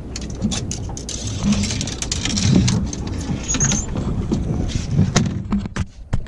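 Sharp clicks and knocks of fishing rods and gear being handled in an open fiberglass deck hatch on a small boat, over steady wind and water noise.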